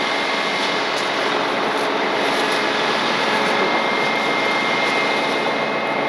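Heavy rotator tow truck's diesel engine running steadily at idle, an even constant noise with a thin steady high tone over it.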